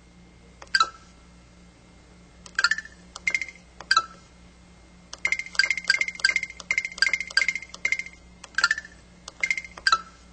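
Samsung SPH-S3900 mobile phone's speaker playing its short electronic effect sounds, brief bright chimes and beeps as the sound-effect menu settings are previewed. A few come singly, then a quick run of them plays about halfway through.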